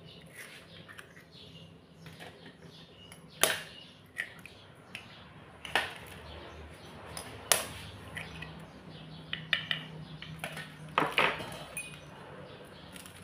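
Eggs being cracked open with a metal spoon into a stainless steel bowl: a handful of sharp clinks of spoon and shell on metal, a few seconds apart.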